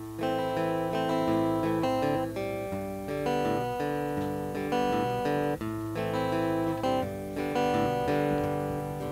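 Acoustic guitar strumming chords in a steady rhythm, changing chord every second or so: the instrumental intro of the song.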